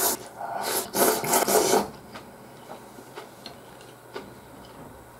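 A man slurping ramen noodles: three loud, noisy sucking pulls in the first two seconds, then a few faint clicks.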